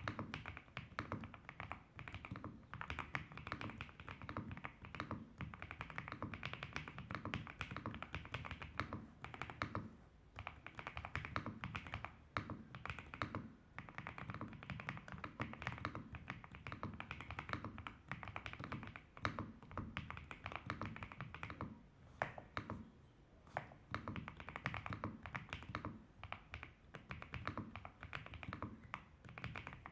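Fast, continuous typing on a Riccks RS8 mechanical keyboard with KTT Strawberry V2 linear switches and Ghost Judge Astronaut keycaps: a steady stream of keystroke clacks, with brief pauses about ten seconds in and again about two-thirds of the way through.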